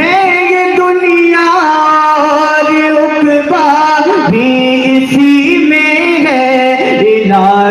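A man singing a naat, drawing out long held notes with wavering ornaments and pitch slides rather than clear words.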